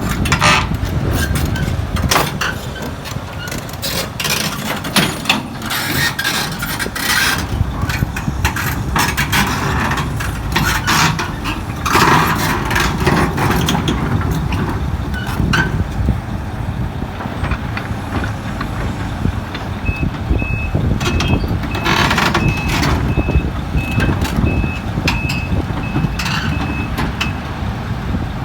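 Excavator running under load with repeated metallic clanks and knocks as it is driven onto a lowbed trailer, with bursts of hiss. In the second half a reversing alarm beeps steadily, about two beeps a second for roughly seven seconds.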